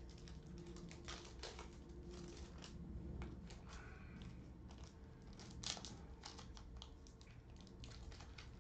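Plastic wrapper of a Panini Prizm basketball card pack crinkling and tearing as it is pulled open by hand: faint scattered crackles, with one sharper crackle a little past the middle.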